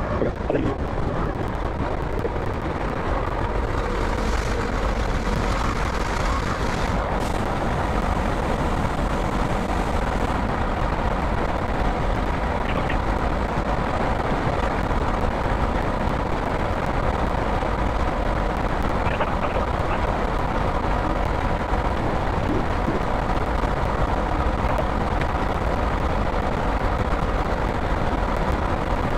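Wheel loader's diesel engine running steadily, with heavy wind noise buffeting the microphone.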